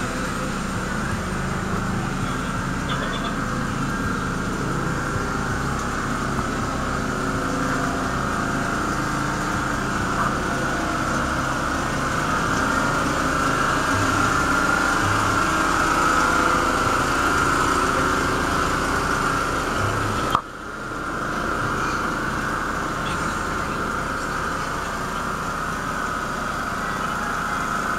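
Large diesel truck engines idling steadily with a low, uneven throb. The sound drops out suddenly for a moment about twenty seconds in, then carries on the same.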